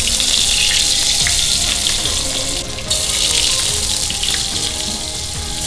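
Fish balls sizzling in shallow hot oil in a frying pan: a steady high hiss that breaks off for a moment about two and a half seconds in.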